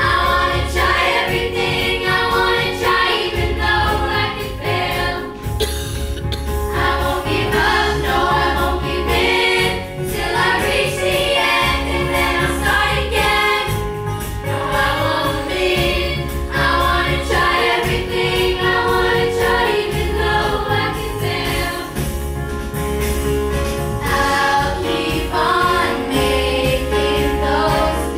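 A group of children singing a song together with a live band: keyboard, drums and bass. The music plays on at a steady level.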